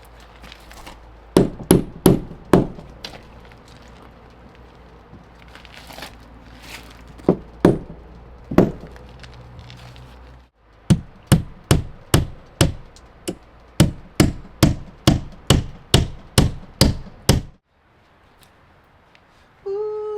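Hammer blows on wood, nailing. A few scattered groups of strikes come first, then after a short break a steady run of about two blows a second.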